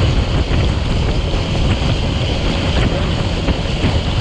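Steady wind rushing over the microphone of a Suzuki GS150 motorcycle riding at speed on a rain-soaked road, with the engine and the hiss of wet tyres mixed in beneath.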